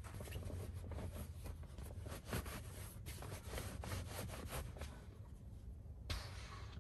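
Rubbing and scuffing of an inflated Luno air mattress being handled and shoved into place against a car's seats, a run of short irregular strokes over a steady low rumble.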